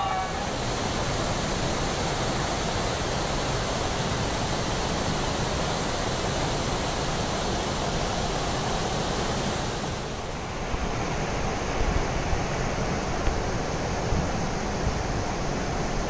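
Steady rushing noise of the Kapilatheertham waterfall's falling water. About ten seconds in the noise dips briefly and changes character, and a few low bumps follow.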